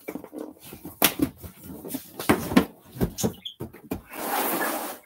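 Cardboard boxes knocking and rubbing as one is pulled out of a stack: several sharp knocks, then near the end a scraping slide as the box goes onto the table.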